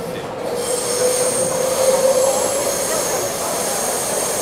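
Taipei Metro C381 train running, heard from inside the car. Its wheels squeal with several high, steady tones that start just under a second in, over a lower whine rising slightly in pitch.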